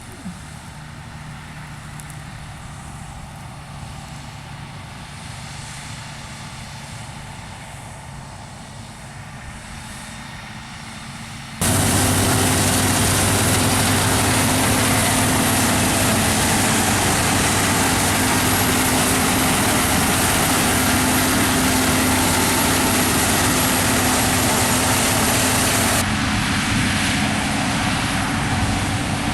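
Claas combine harvesters running steadily, diesel engine hum under the rush of the threshing and harvesting machinery. About twelve seconds in the sound jumps suddenly to a much louder, closer engine drone, then drops back somewhat near the end.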